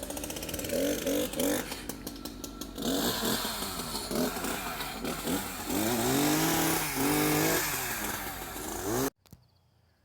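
Chainsaw running and revving up and down during tree cutting, stopping abruptly about nine seconds in.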